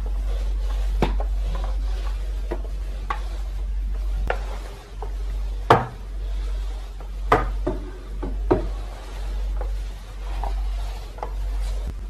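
Vileda spin mop's cotton-string head swished back and forth over a laminate floor, a soft swishing that swells and fades with each stroke. Several sharp knocks come in between, as the mop bumps the skirting board and bed frame.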